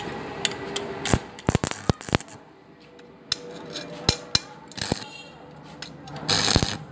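Pieces of thin steel square tube being handled and set against each other on concrete: a scatter of sharp, light metal clicks and knocks, with a short scrape near the end.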